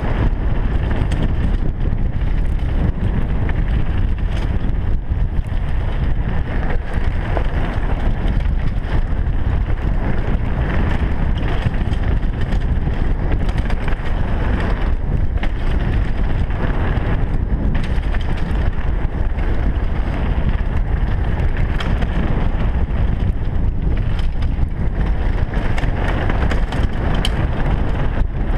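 Wind buffeting a helmet-mounted camera's microphone at speed, over the steady rumble of mountain-bike tyres on a dirt trail, with frequent small clatters from the bike over rough ground.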